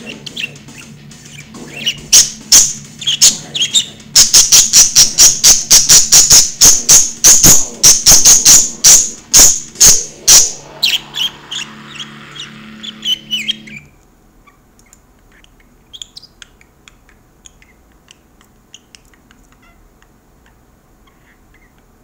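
Cookie Monster–style metal playing loud through a speaker, with a fast run of sharp drum hits, about four a second, over a steady low drone. The music cuts off suddenly about 14 seconds in, leaving only faint scattered ticks.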